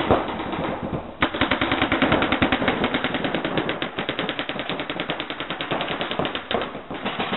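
Reball markers firing rapid, near-continuous volleys of shots, starting about a second in.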